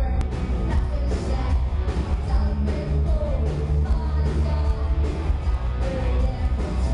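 Live punk rock band playing: electric guitar, bass and drums, with a woman singing. The deep bass is the loudest part and the drum hits come through as steady beats.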